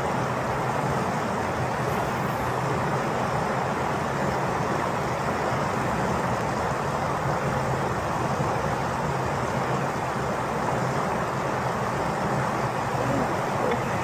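Steady, unbroken rushing noise with a faint low hum underneath.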